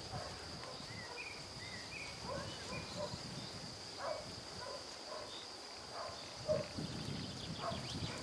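Outdoor ambience in summer countryside: a steady high-pitched insect drone, with scattered short chirps and calls over a low rumble.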